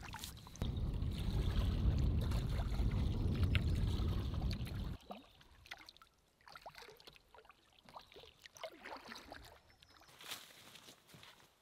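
Loud, low wind buffeting on the microphone for about the first five seconds, cutting off abruptly. Then quiet water sounds from a canoe gliding on a lake: light drips and small splashes from the paddle.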